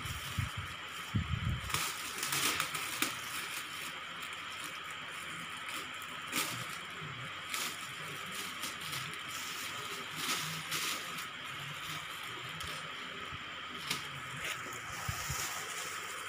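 Black plastic bag wrapping rustling and crinkling in short, irregular bursts as it is pulled and torn off a parcel, over a steady hiss.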